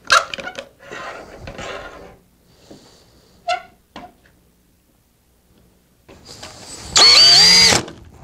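Clicks and rattles as bar clamps are worked on the cabinet, then a cordless drill whirring loudly for under a second near the end, its pitch rising and dipping with the trigger, as it drives a screw into the MDF panel.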